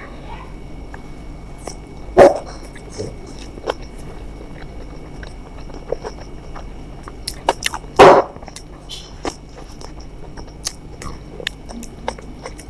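Eating sounds: small sharp clicks and smacks from chewing food and handling it. Two loud short sounds stand out, about two seconds in and about eight seconds in.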